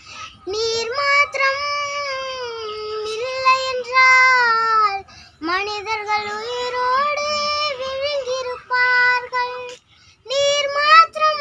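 A young girl singing a Tamil Christian song unaccompanied, in a high child's voice with held, gliding notes. She breaks off briefly for breath about five seconds in and again near ten seconds.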